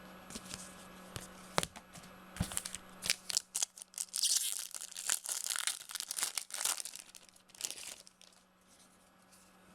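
Foil wrapper of a baseball card pack being torn open and crinkled, a run of sharp crackles and rustles that is densest in the middle and dies down near the end.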